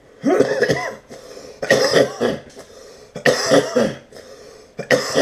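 A man coughing in four loud bouts about a second and a half apart, brought on by too big a hit of smoke from a bong.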